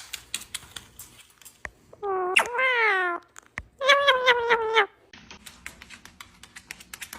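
Two drawn-out, cat-like meows, each about a second long and falling in pitch at the end, over scattered soft clicks.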